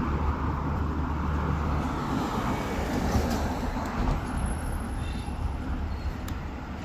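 Urban road traffic: a steady rumble of passing vehicles, heavier in the first two seconds and easing after that.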